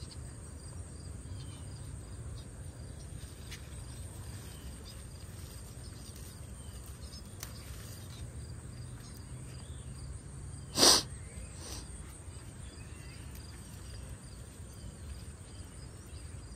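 Hand pruning shears snipping yardlong bean stems: a few faint clicks, then one sharp, loud snip about eleven seconds in and a softer one just after. Under it, a steady low rumble and faint insects chirring.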